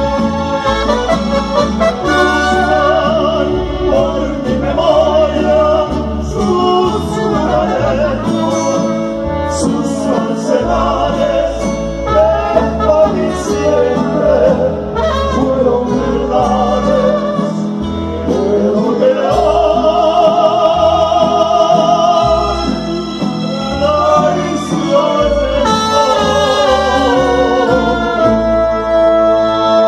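Live mariachi band playing a ranchera, with trumpet and guitars over keyboard and hand percussion.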